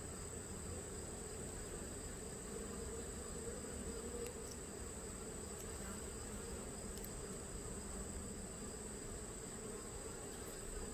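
Honeybee colony humming steadily from an open Langstroth hive while its frames are being searched for the queen, with a steady high whine above it and a few faint ticks.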